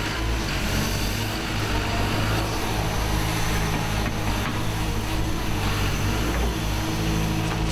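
Hyundai HX180 excavator's diesel engine running steadily, heard close up from on the machine as it swings and moves its arm.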